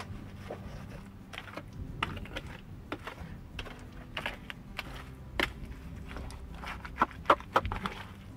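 Trowel working wet mortar onto a stone course: wet slaps as it is dropped, scraping as it is spread, and irregular clicks of the steel blade against the stones. A few sharper knocks come about seven seconds in.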